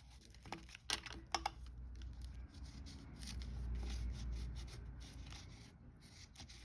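Paper and cardstock being handled on a work surface: a few sharp ticks in the first second and a half, then a longer, low rubbing sound that swells and fades.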